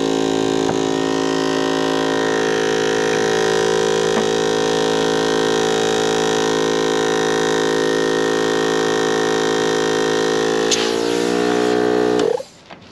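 Air compressor motor running steadily while inflating a punctured tire, then winding down in pitch and shutting off near the end.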